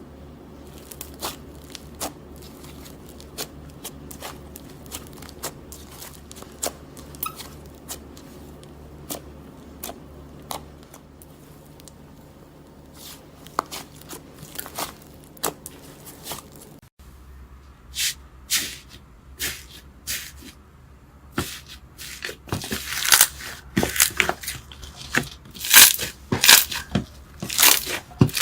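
Slime being squeezed and pulled by hand, giving scattered sticky pops and clicks. After a cut about 17 seconds in, it turns into louder crunchy crackling in quick bursts near the end.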